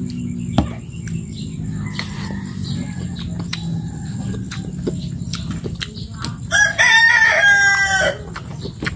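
A rooster crows once, loudly, for about a second and a half near the end. Light clicks of a metal spoon on the food come now and then.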